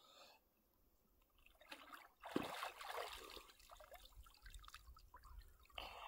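Cold lake water splashing and trickling as a person moves in it and water runs off the body. The splashing starts about two seconds in and comes in uneven surges.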